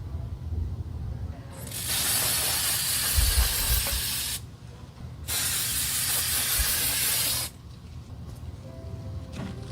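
An aerosol spray can sprayed in two long bursts with a short pause between, the first lasting nearly three seconds and the second about two.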